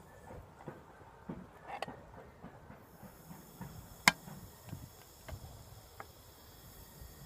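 Soda dripping from an upturned drink can into a glass, with small scattered ticks and one sharp click about four seconds in.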